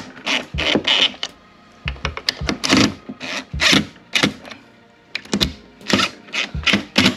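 DeWalt cordless driver tightening the screws of a metal table hinge, running in a series of short bursts with brief pauses between them.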